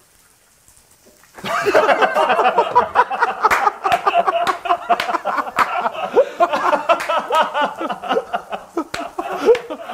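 Near quiet for about a second and a half, then several men laughing hard and continuously, with sharp smacks mixed in.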